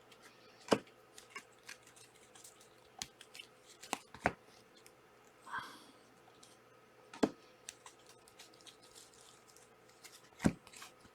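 Trading cards and foil card packs being handled at a table: a handful of sharp, irregularly spaced clicks and taps, with a brief rustle a little past halfway.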